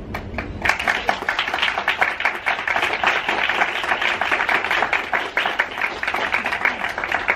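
Small audience applauding: many people clapping at once, starting about half a second in and carrying on steadily.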